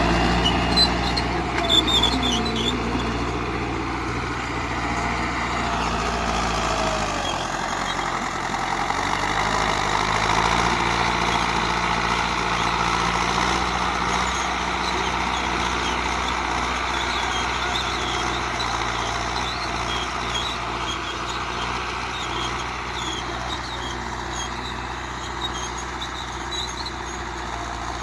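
Belarus 510.1 tractor's diesel engine working under load while pulling a five-tine chisel plough through the soil. The engine note drops about seven seconds in, then runs steadily and grows slightly fainter toward the end.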